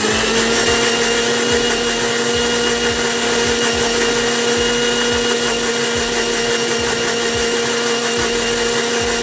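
Electric blender motor running at a steady pitch, whirring through a jar of milk, coffee and chocolate while blending a milkshake.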